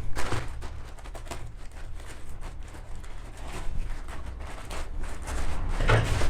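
A parcel being opened by hand: irregular rustling of packaging with small clicks and knocks, and a louder rustle near the end.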